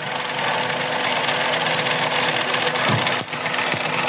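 Suzuki Celerio engine running steadily at idle just after being started; the car has a misfire, traced to a cracked, leaking part.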